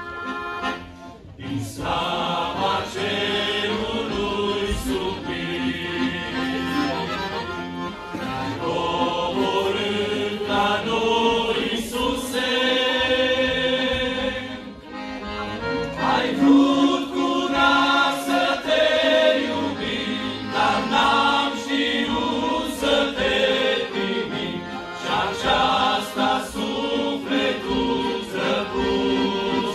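Men's vocal group singing a Christian hymn in parts, accompanied by an accordion, with brief breaks about a second in and about halfway through.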